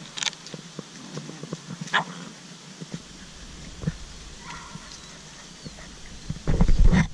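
Bernese mountain dog × Great Pyrenees puppies wrestling and scuffling in play, with a few short yips and whimpers. Near the end there is a loud, low rumble lasting about half a second.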